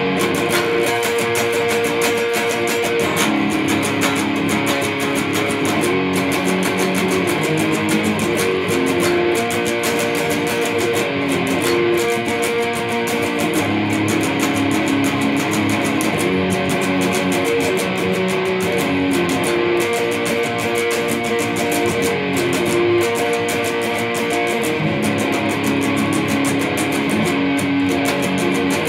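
Electric guitar played with a pick: a continuous instrumental passage of held notes and chords that change every second or two.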